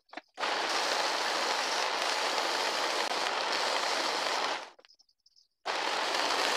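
Small benchtop vertical belt sander running while a small block of wood is pressed against its belt: a steady, even hiss of abrasive on wood. It cuts off suddenly about four and a half seconds in and starts again about a second later.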